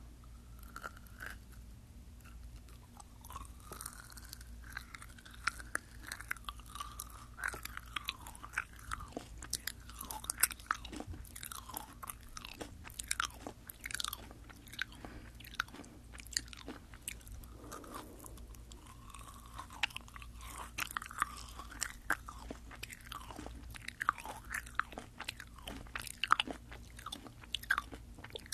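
Close-miked chewing of Fini gummy jelly candies, with many sharp, irregular wet mouth clicks, picked up on a binaural microphone.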